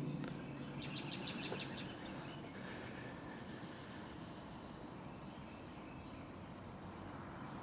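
Steady outdoor background noise with a small bird's short, rapid trill of about eight quick high notes about a second in, and a fainter call a couple of seconds later.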